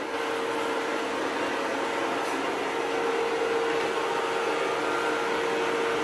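Multilaser HO041 robot vacuum running: a steady whirr with an even mid-pitched hum through it.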